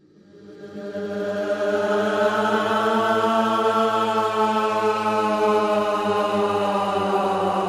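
Horror sound effect: a low, chant-like droning voice that fades in from silence over about a second and a half, then holds one steady pitch.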